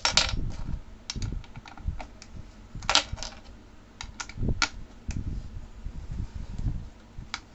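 Irregular clicks and knocks of a cat tree post being screwed onto its base with a tool, tightening it down.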